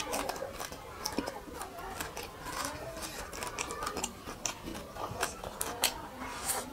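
A person chewing and lip-smacking while eating fried fish and rice by hand: a string of irregular wet mouth clicks and smacks.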